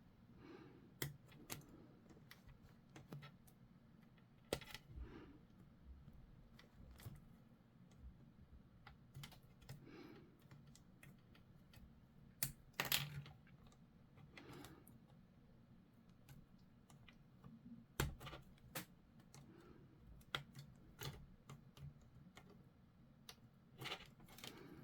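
Faint, irregular clicks and taps of small plastic model parts being handled and fitted together on a tabletop, with a few sharper clicks among them.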